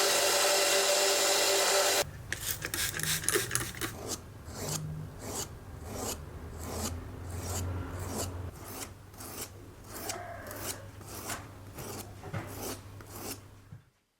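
A power tool runs loudly for the first two seconds and stops abruptly. Rapid hand strokes of rasping and rubbing follow, about two a second, and fade out just before the end.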